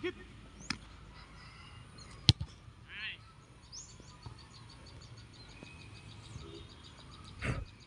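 Sharp thuds of a football being kicked on a grass pitch, three in all, the loudest about two seconds in. Birds chirp faintly in the background, with a rapid run of high chirps in the second half.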